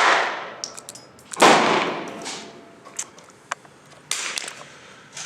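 J-22 .22 LR pistol firing: a shot right at the start and two more about 1.5 and 4 seconds in, each sharp crack trailing off in a long echo.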